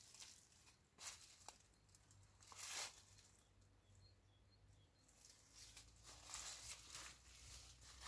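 Faint rustling of persimmon tree leaves stirred by light breeze, coming in a few soft swells.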